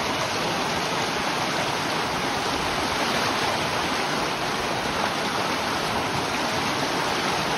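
Fast shallow stream rushing over rocks in a small cascade, a steady, unbroken rush of water.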